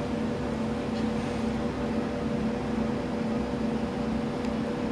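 Ultrasonic cleaning tank running with its immersed transducers driving the water while liquid is pumped through it: a steady hum with a hiss over it.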